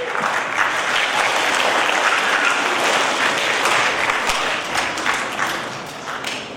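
Audience clapping: a burst of applause that builds quickly, holds, and dies away near the end.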